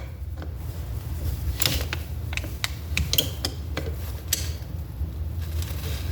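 Small metal parts of a distributor being handled while its pickup air gap is adjusted: scattered light clicks and scrapes from the tools and parts, most of them between about one and a half and four and a half seconds in, over a steady low hum.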